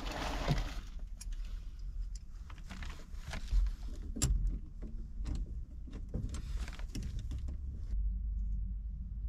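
Irregular clicks, light knocks and small rattles of objects being handled, over a steady low rumble.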